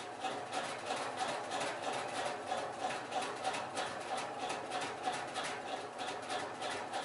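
1980s Canarm industrial ceiling fan running on high with a steady motor hum and a rapid, rhythmic vibration rattle of a few knocks a second. These extra vibration sounds come only at high speed; the owner traces them to a screw on the fan that keeps working loose.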